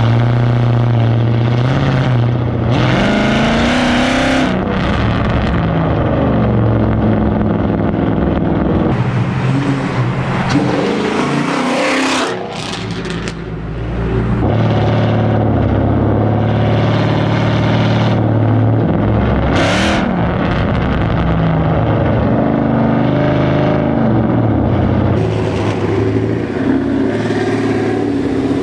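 Straight-piped V8 car exhaust under way, its note rising and falling as it accelerates and lets off. The engine note drops away briefly near the middle, and sharp cracks come there and again about twenty seconds in.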